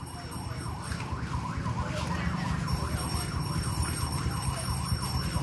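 An electronic siren yelping in rapid up-and-down sweeps, growing louder over the first couple of seconds, over a steady low rumble.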